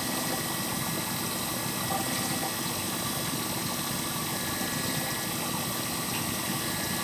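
Vertical knee mill running at about 2400 RPM, its 1/4-inch end mill cutting a notch into an aluminium mount: a steady machine hum with several steady tones.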